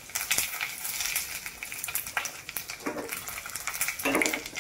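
Panch phutan seeds spluttering in hot oil in a small pan: scattered sharp pops and crackles over a light sizzle.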